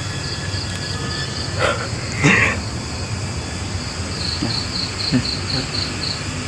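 Cricket chirping in steady pulses, about three chirps a second, stopping for a couple of seconds in the middle before resuming. Two brief louder noises sound near the start of that pause.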